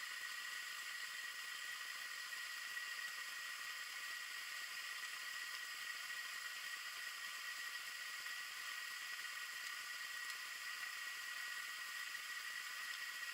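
Steady hiss with a constant thin high whine, the underwater recording noise of a Spydro underwater fishing camera; no clear bite or fish sound stands out.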